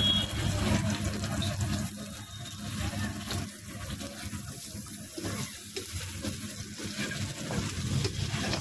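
Smoked chicken, onions and green chillies sizzling in a hot wok over a gas burner, a steady hiss with a low rumble underneath.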